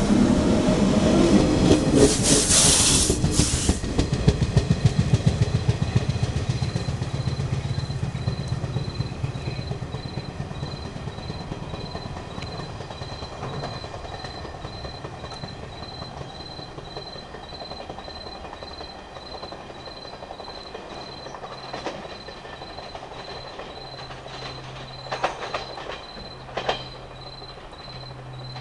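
JR West 115 series 3000-subseries electric train pulling out and gathering speed, its wheels clattering quickly over the rail joints, with a brief loud high-pitched burst about two seconds in. The sound then fades steadily as the train draws away into the distance.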